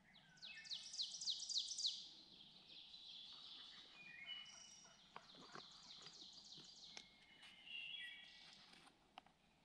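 Several songbirds singing in spring woodland: a fast run of high, falling notes in the first two seconds, then other birds' high chirps and trills overlapping. A few soft clicks come through in the middle and near the end.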